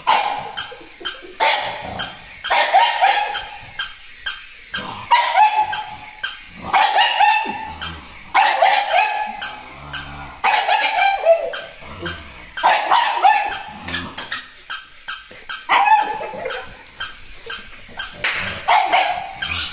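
Battery-operated plush toy dog giving repeated barks of much the same shape every second or two, over the steady fast clicking of its walking mechanism.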